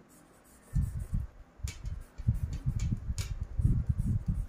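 Handling noise close to the microphone: irregular low thumps and rubbing, with two sharp clicks about a second and a half apart.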